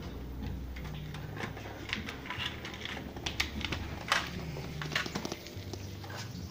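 Small toy cars clicking and tapping on a ceramic tile floor as they are handled, in irregular sharp taps a few times a second.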